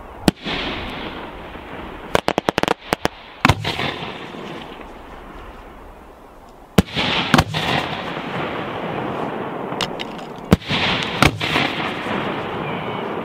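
Fireworks display: aerial shells bursting in sharp bangs every second or two, each trailing off in a long echo, with a quick run of crackling pops about two seconds in.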